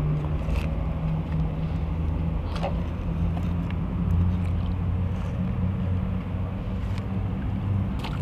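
A steady low engine-like hum over a rumbling background, with a few faint clicks.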